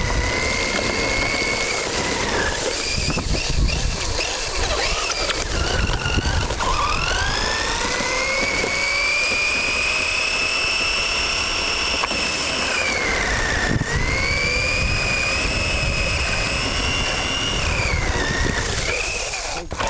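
Onboard sound of a Tamiya TT-01 radio-controlled car's electric motor and gear drive whining, the pitch climbing and dropping several times as the throttle is worked. Under it runs a constant rumble of the tyres on rough, wet tarmac.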